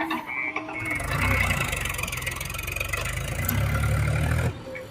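Heavy diesel engine of a working tractor or backhoe loader running close by, swelling about a second in. It drops away suddenly near the end.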